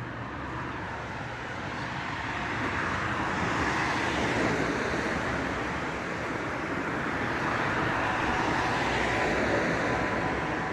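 The so-called 'sky trumpets' mystery noise: a long, noisy drone with faint steady tones in it, swelling in loudness about four seconds in and again near the end. The recorder says it comes from the sky and sounds like trumpets.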